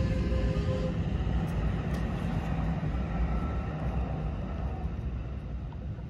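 Steady low rumble of distant engine noise.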